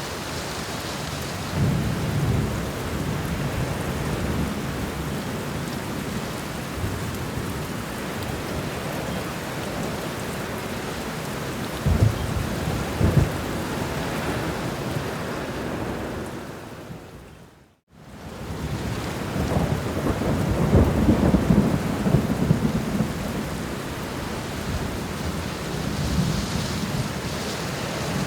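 Steady heavy rain with rolling thunder rumbles, and two sharp cracks of close thunder about twelve seconds in. The sound briefly fades out to silence a little past halfway and fades back in, followed by a long rumble of thunder.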